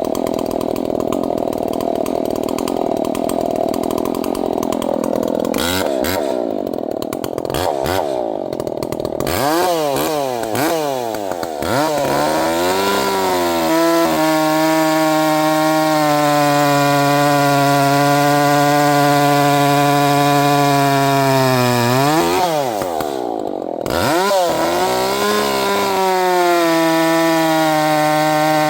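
Two-stroke gas chainsaw cutting oak logs. It revs up and down several times, then holds high speed through long steady cuts. Its pitch drops briefly about two-thirds of the way in, then climbs back.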